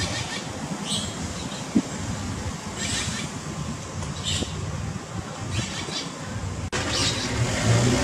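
Steady outdoor background noise with a low rumble, broken by a few short high-pitched chirps. Near the end the sound drops out for an instant and comes back changed.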